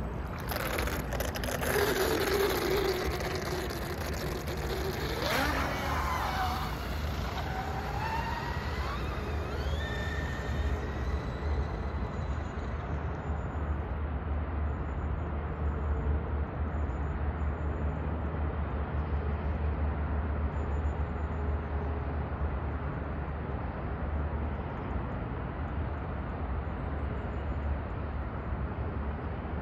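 Radio-controlled hydroplane racing boat's motor whining at high speed, its pitch gliding up and down as it accelerates and turns, fading into the distance after about twelve seconds. A steady low rumble continues after the whine fades.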